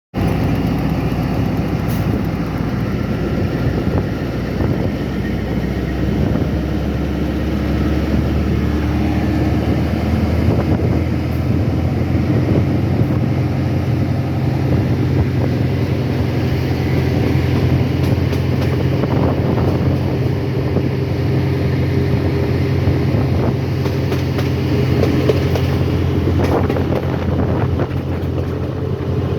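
A moving train's steady running noise: a low rumble with a low hum under it.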